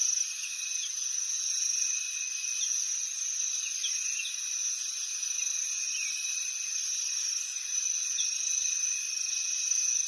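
Steady high-pitched chorus of insects, with a few short chirps scattered through it.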